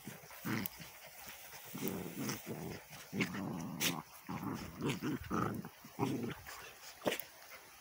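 Borador puppies and their Labrador mother play-fighting, giving irregular short growls, with a few sharp clicks among them.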